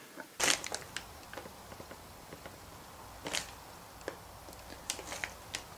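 Handling noise: a few short crinkles and rustles of crumpled brown paper as a hand moves a small plastic toy head about on it, over a faint steady low hum.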